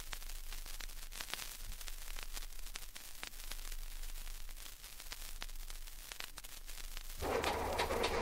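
Vinyl record surface noise: faint steady hiss scattered with crackles and clicks. About seven seconds in, a light plane's engine starts up and grows louder.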